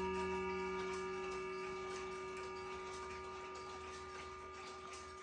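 A Howard Miller Jennison triple-chime wall clock's hour-strike rod ringing out and slowly fading after its last strike of six o'clock, with a clock ticking steadily underneath.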